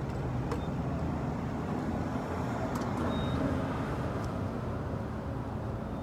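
Steady low rumble of car engines and road traffic, with a few faint clicks.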